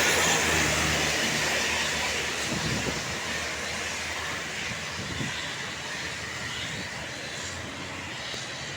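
A bus driving past close by, its engine and road noise fading steadily as it moves away.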